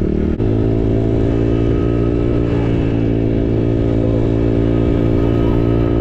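Dirt-bike engine running steadily at cruising speed, close to the microphone. About half a second in, the engine note steps to a different steady pitch.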